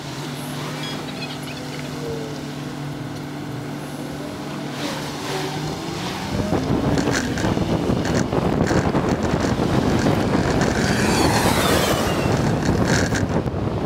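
Vehicle driving with a steady low engine hum, then the pitch rises and wind and road noise grow louder from about six seconds in as it speeds up.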